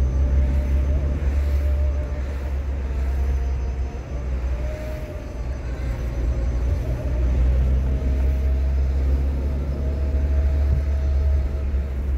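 Car driving: a steady low rumble of engine and tyres, easing off for a few seconds in the middle and then building again, with a faint whine running above it.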